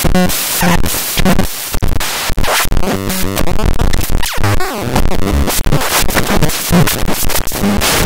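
Vapetron SL20 handmade battery-powered noise synthesizer making loud, harsh electronic noise: hiss and stepping, stuttering tones that cut in and out abruptly many times a second.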